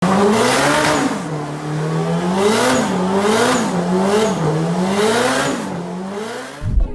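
Turbocharged Honda S2000 engine revving up and down about five times, with a hiss near each rise in revs. A short low thump comes just before the end.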